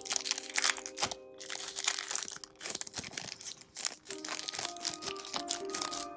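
Plastic packaging crinkling and crackling as it is handled, in irregular spurts with brief pauses, over soft background music.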